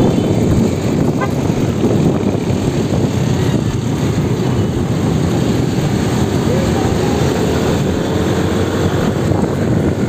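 Wind rushing over the microphone of a moving motorcycle, mixed with steady engine and road noise from the surrounding traffic.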